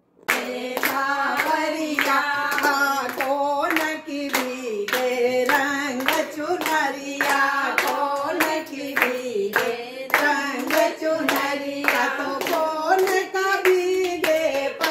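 A group of women singing a song together, keeping time with steady rhythmic hand claps.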